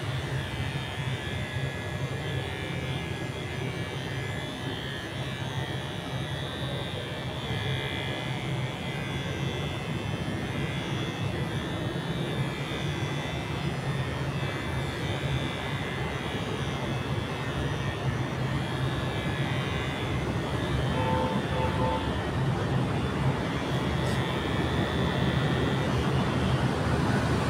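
Cordless electric hair clippers running with a steady buzz while they cut short hair.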